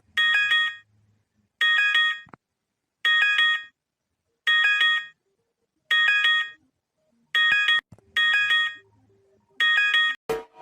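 Electronic alarm beeping eight times at roughly regular intervals, each burst a short cluster of several high tones sounding together with a quick pulsing inside it.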